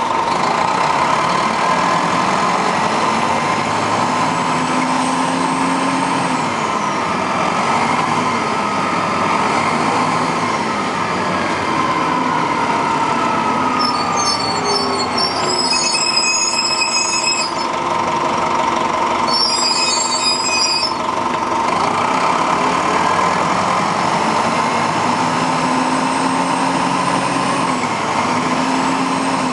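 Detroit Diesel Series 50 diesel engine of a 1996 Nova RTS transit bus heard from on board while driving. The engine note climbs and then drops as the Allison automatic transmission shifts, about a quarter of the way in and again near the end. A high ringing comes in twice around the middle.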